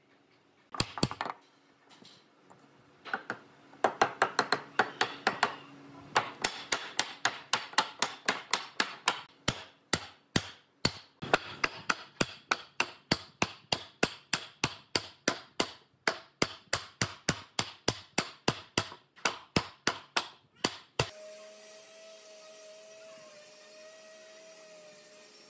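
Rapid, evenly spaced hammer blows, about three a second, as a curved pine side piece is knocked onto a slatted wooden frame. The blows stop near the end, and a steady tone like background music comes in.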